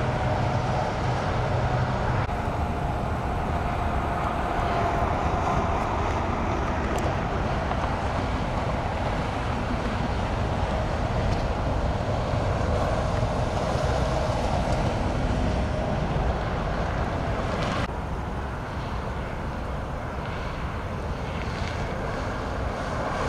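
Steady roar of freeway traffic with wind on the microphone; the sound thins out abruptly about eighteen seconds in.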